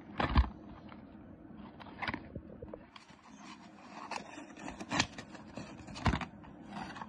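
Small cardboard product box being handled and opened by hand: scattered scrapes and light knocks, the sharpest near the start and about five and six seconds in.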